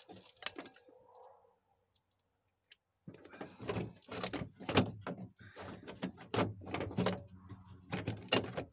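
Quick, irregular clicks and knocks of metal and plastic as a car door's latch and lock actuator assembly is worked loose inside the door shell, starting about three seconds in after a brief quiet.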